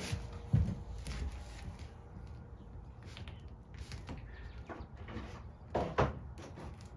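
Scattered knocks and scraping as a mower's carburettor cover is handled and cleaned, with a sharp knock just after the start and a louder one near the end.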